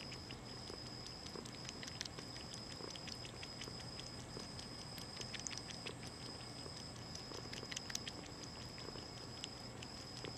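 Young Virginia opossum drinking water, lapping in irregular clicks several times a second.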